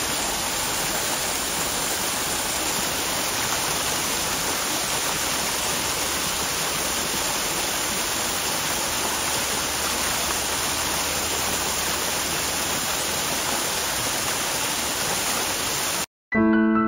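Small waterfall splashing steadily down rocks. It cuts off suddenly near the end, and piano music starts.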